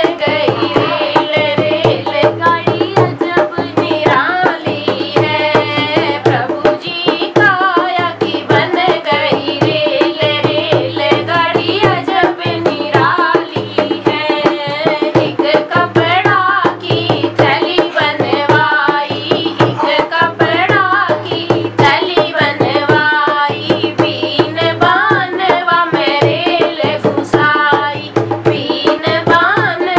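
A girl sings a Hindi devotional bhajan while playing a dholak, a rope-laced two-headed barrel drum, with a fast, steady beat under her melody.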